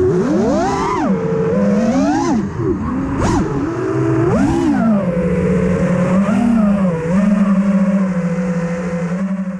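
FPV racing quadcopter's brushless motors (Rotor Riot 2207, 2450kv) whining. The pitch rises and falls in several quick swoops with throttle changes, then holds at a steadier tone with a couple of small dips over the second half.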